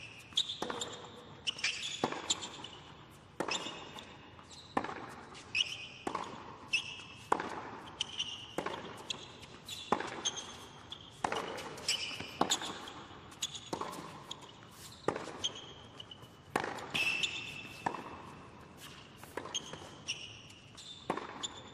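Tennis rally on an indoor hard court: a steady run of crisp racquet strikes and ball bounces, one every half-second to second, with short high-pitched sneaker squeaks as the players change direction.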